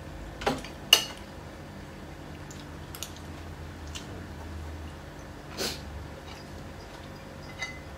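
Spoons and forks clinking and scraping against ceramic plates during a meal: a few scattered clinks, the loudest about a second in, over a steady low hum.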